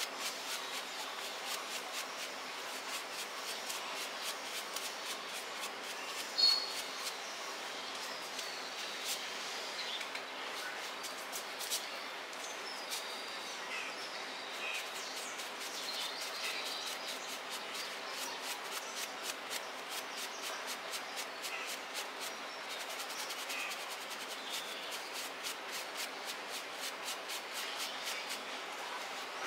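Stiff plastic brush scrubbing the plush fur of a giant teddy bear in quick repeated strokes. Birds chirp in the background, and one sharp chirp about six seconds in is the loudest sound.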